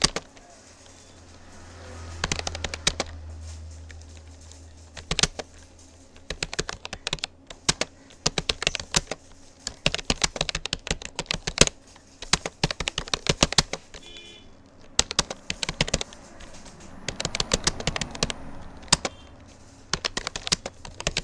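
Typing on a Rapoo computer keyboard: sharp key clicks in quick, irregular runs, with short pauses between them.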